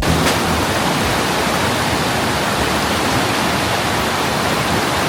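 A river rushing steadily, an even wash of water noise.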